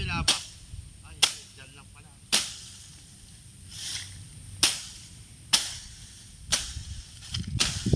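A series of about seven sharp cracks or knocks, spaced roughly a second apart and each dying away quickly. No chainsaw motor is running.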